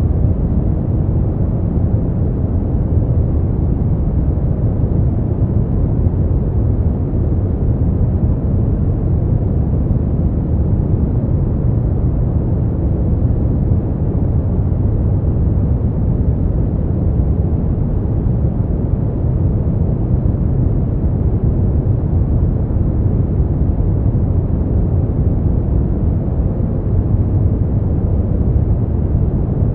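Brown noise: a steady, deep rushing hiss, heaviest in the low end and dull in the highs, with no changes or events.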